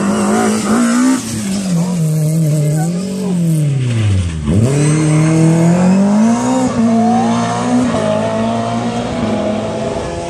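Rally car engine revving hard through a stage: the revs rise and fall, dip sharply about four and a half seconds in, then climb again in steps as it accelerates away through the gears.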